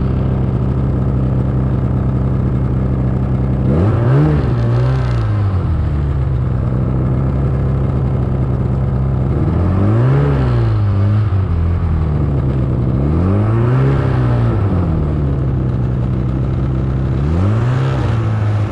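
Snowmobile engine running under way, revving up and dropping back four times as the throttle is worked.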